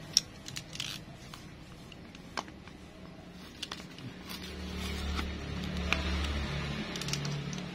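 Fingernails picking and scratching at a sticker seal on a cardboard box: scattered small clicks and scrapes. A low hum swells in about halfway through.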